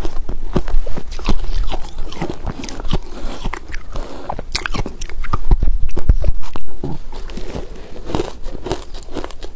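Hard ice dusted with matcha powder being bitten and chewed close to a clip-on microphone: dense, irregular crunching, loudest around the middle.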